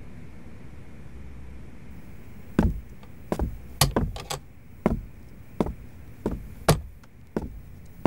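Footsteps of hard-soled shoes on a hard floor, starting about two and a half seconds in at a steady walking pace of roughly one and a half steps a second, with a quick run of clicks around the four-second mark. A low steady room hum lies under the start.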